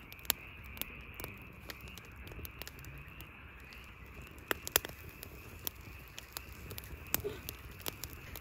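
Firewood burning in a fire pit, crackling with irregular sharp pops and snaps, one loud snap near the middle, over a steady high background drone.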